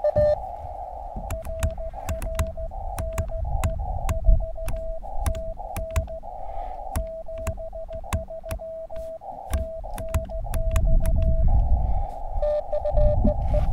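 Elecraft KX2 transceiver sending Morse code on 20 metres: the sidetone beeps out dots and dashes at one steady pitch, and the receiver's band hiss comes up in the gaps between characters (full break-in). Sharp clicks run along with the keying, and a low rumble sits underneath, louder from about ten seconds in.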